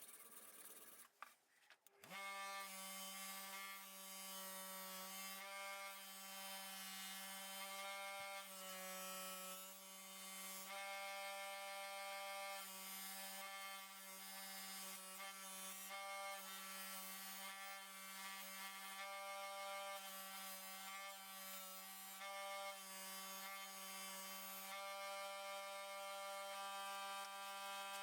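Electric power tool motor running steadily with a fixed-pitch hum, wavering slightly as work is pressed against it, as in grinding or sanding a forged knife blade.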